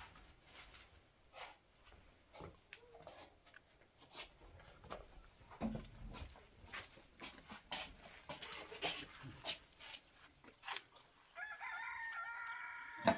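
A rooster crowing once near the end: one long call of about two seconds. Before it, scattered short clicks and knocks.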